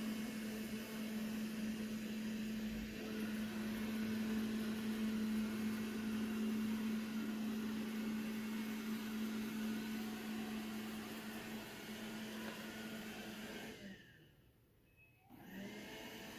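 Robot vacuum running, a steady whir with a low hum. Near the end the sound drops away for about a second, then a quieter steady whir returns.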